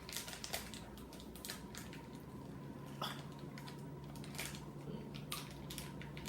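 Plastic snack packet being handled and opened, with irregular crinkling and crackling clicks.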